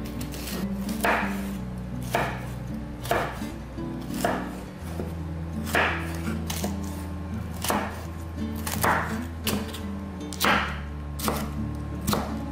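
Chef's knife chopping a red bell pepper on a wooden cutting board, a sharp knock of the blade on the board about once a second, over soft background music.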